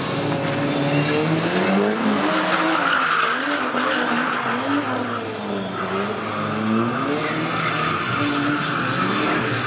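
A car drifting: its engine revs rise and fall repeatedly as it slides, over a continuous squeal of tyres skidding on concrete.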